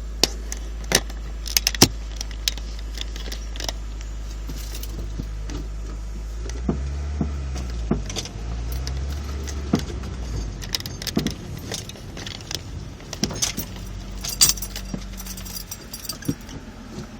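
Inside a 2002 Acura RSX Type S, a steady low vehicle rumble with irregular sharp clunks and rattles over it. These are the clunking noise the owner is tracing to the suspension.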